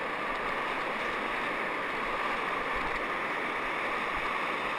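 Breaking surf and foaming wash around an angler standing in the shallows, a steady rushing hiss.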